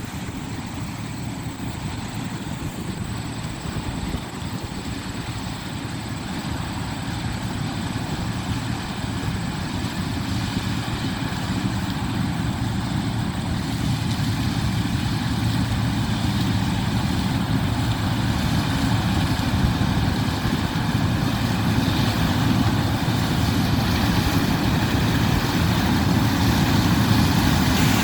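Heavy farm machinery engine running steadily, growing gradually louder.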